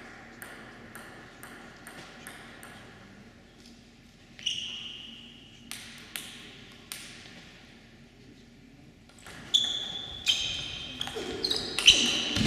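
A table tennis ball is bounced in quick light ticks before the serve. Then come sharp ringing pings off the table and bats, quickening into a rally in the last few seconds, with a louder burst of noise at the very end.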